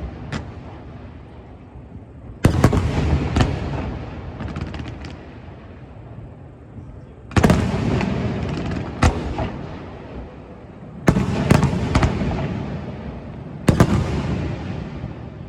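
Aerial firework shells bursting in a continuous display: four loud booms a few seconds apart, each trailing off into a rolling rumble and crackle that fades before the next, with lighter pops in between.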